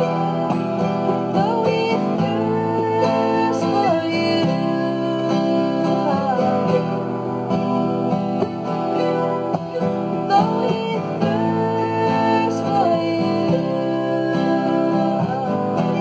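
Acoustic guitar and mandolin playing a slow, gentle worship song, with a woman's voice singing two drawn-out, gliding phrases over the strings.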